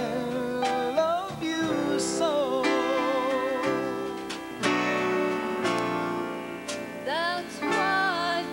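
Live band music from a stage show: held melody notes with a wavering vibrato over sustained chords, with a few sharp accents along the way.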